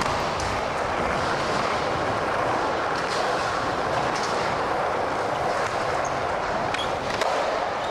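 Skateboard wheels rolling over a smooth concrete floor, a steady rolling noise with a few light clicks from the board.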